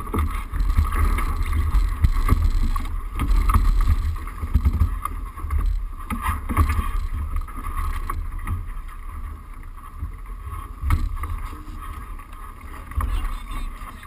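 Wind buffeting the microphone as a loud, uneven low rumble, with scattered knocks and a steady high hum underneath.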